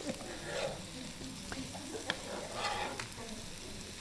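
Pomegranate being broken apart by hand, its seeds crackling loose from the rind and membrane and pattering onto a platter, with a few soft rustles and small clicks.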